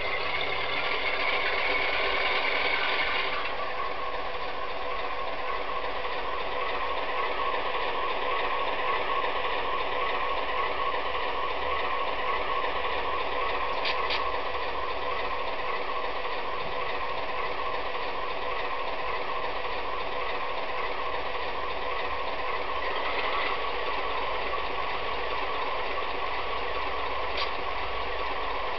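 Recorded GE four-stroke diesel engine sound from a Soundtraxx Tsunami sound decoder, played through a 27 mm high-bass speaker in a Walthers U30B model locomotive's cab-and-chassis enclosure. The engine sound runs steadily, somewhat louder for the first three seconds or so, with two brief faint clicks later on.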